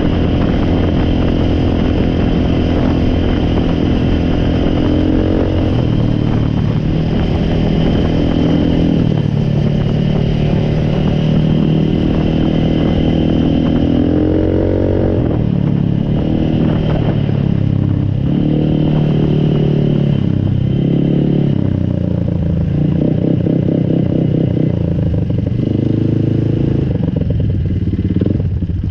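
Four-wheeler (ATV) engine running, steady for the first few seconds, then revved up and down repeatedly through the rest.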